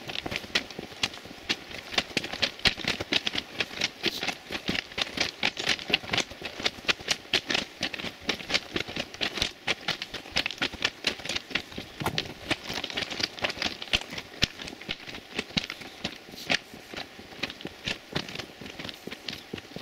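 Footsteps crunching on the loose stone ballast of a railway track, a steady walking rhythm of sharp gravelly steps.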